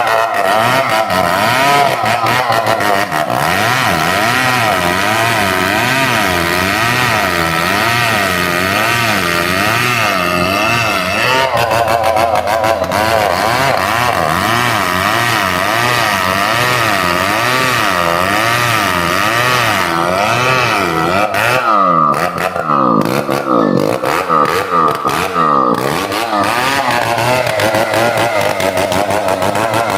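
Two-stroke chainsaw running under load as it cuts into a large tree trunk, its engine pitch wavering up and down steadily as the saw is worked through the cut. About two-thirds of the way through the sound turns uneven, with brief drops in the revs.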